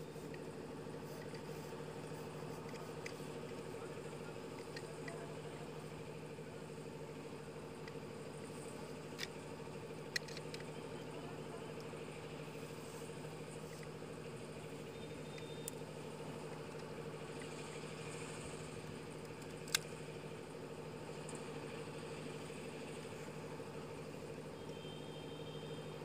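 A steady mechanical hum, like an idling engine, runs throughout without change. Four sharp clicks stand out from it, spaced several seconds apart, as the fiber optic cable sheath is worked by hand and tool.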